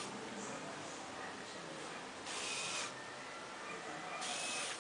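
Plastic LEGO Technic mechanism of a model truck rasping: a short, hissing scrape that comes back at an even pace about every two seconds, each with a faint thin squeak at its start.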